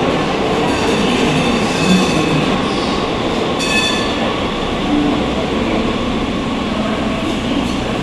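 Two-car Muni Breda light-rail train running along the platform: a steady rumble of steel wheels on rail and traction motors, with a brief high-pitched squeal about three and a half seconds in.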